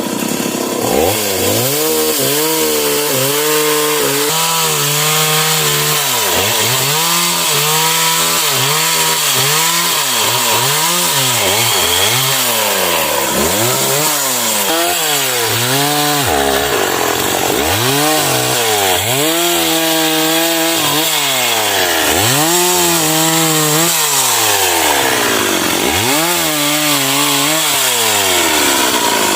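Stihl MS 381 two-stroke chainsaw cutting sengon wood, its engine note climbing and sagging again and again every second or two as the chain bites into the wood and frees up.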